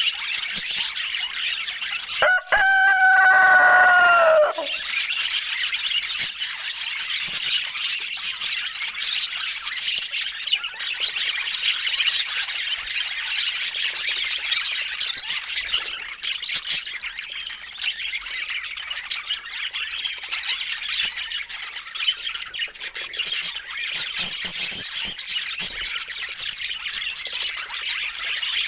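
Budgerigars chattering and warbling continuously. About two seconds in, one loud, long, lower call rises above the chatter and falls in pitch at its end.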